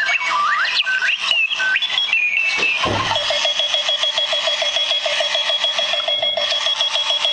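Run-away alarm clock going off: electronic beeps that jump randomly in pitch, then, after a thump about three seconds in, a fast, even repeating chirp over a steady high tone.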